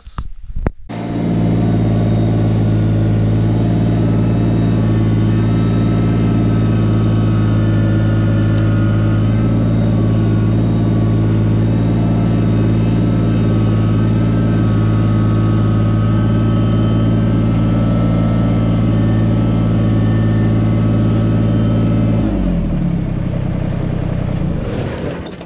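Kubota BX25 subcompact tractor's three-cylinder diesel engine running steadily and loud, close by. About 22 seconds in the engine note drops and the sound fades away.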